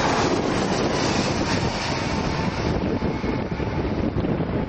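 Boeing 757's jet engines at takeoff power as the airliner climbs away, a loud rushing noise whose hiss fades over the second half, with wind buffeting the microphone.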